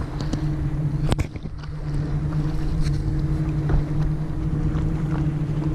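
Water and wind noise on a GoPro mounted at the nose of a paddleboard, under a steady low motorboat engine hum. There is one sharp knock about a second in.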